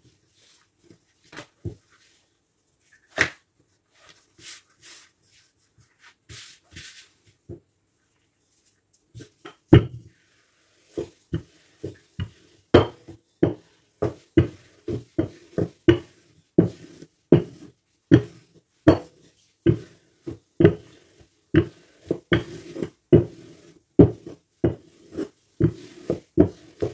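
Wooden rolling pin worked back and forth over thin strudel dough on a wooden worktop, a knock with each stroke at about two a second from about ten seconds in. Before that, a few scattered light knocks and a short rustle.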